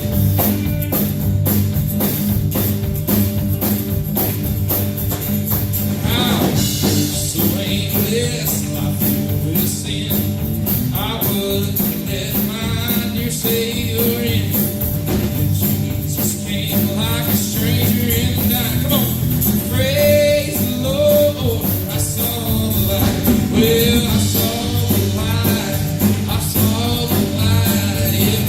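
Worship band playing a song with drums and guitar; singing comes in about six seconds in.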